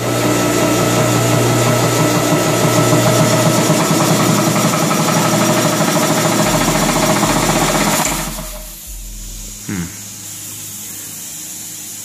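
Kobalt 60-gallon air compressor's electric motor and pump switched on, running loud and steady with a fast rhythmic hum for about eight seconds, then winding down and stopping. The compressor is having a hard time starting back up.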